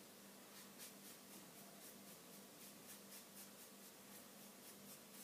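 Faint, quick scratchy strokes of a razor comb being drawn through hair to cut it, about three a second.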